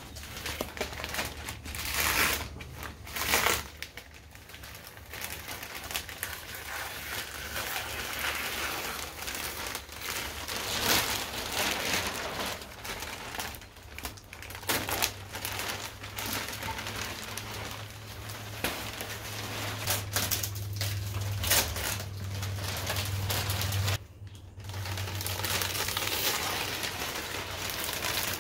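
Plastic masking film and masking tape being pulled and peeled off a freshly spray-painted car engine bay, crinkling and rustling irregularly with sharp crackles, over a low steady hum.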